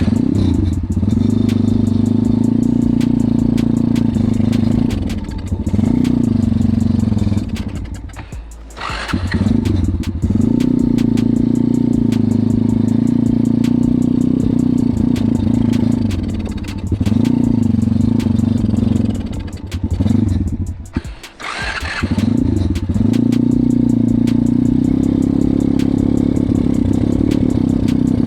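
140cc pit bike's single-cylinder engine running and being revved unevenly, struggling to keep going. Twice its sound drops away and then picks up again with a burst of revs.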